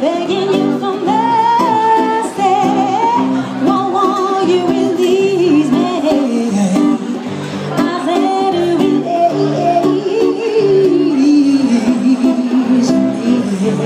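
A woman sings a gliding melody with vibrato into a microphone, accompanied by an acoustic guitar.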